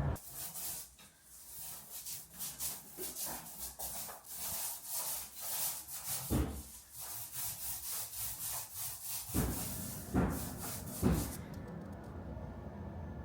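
Rapid, rhythmic rasping strokes, which stop about eleven seconds in.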